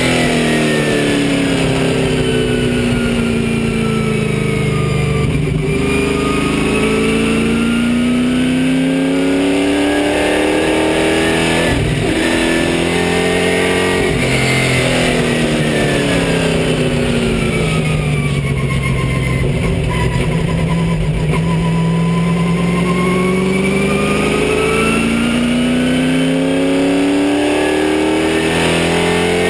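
Race car engine heard from inside the cockpit, running hard the whole time. Its pitch falls and rises in long sweeps twice as the car slows for corners and accelerates out of them, with a few short breaks where gears change.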